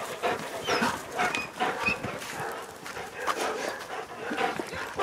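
Dogs barking and whining on and off.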